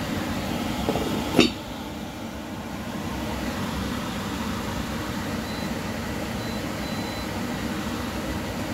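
A heavy lid is set on an enamelled cast-iron pot with a single clank about a second and a half in, over a steady whirring hiss from the cooktop and the simmering soup.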